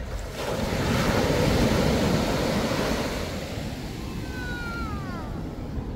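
Ocean surf: a wave breaks and washes up the beach, swelling about a second in and fading by the middle, with wind buffeting the microphone. Near the end, a short falling whistle.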